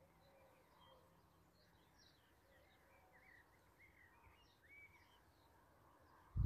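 Faint songbird chirps and short whistles, scattered over a quiet outdoor hush. A sudden low rumble starts at the very end.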